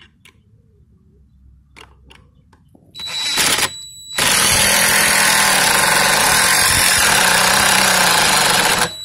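DeWalt cordless impact driver driving a long screw into a wooden board: a short burst about three seconds in, a brief pause, then a long, loud continuous run of nearly five seconds that stops just before the end.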